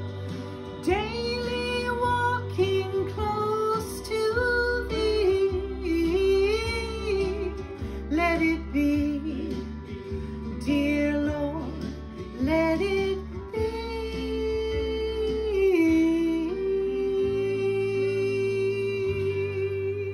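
Music: a woman singing a song over instrumental accompaniment. The voice stops about three-quarters of the way through, leaving a held chord.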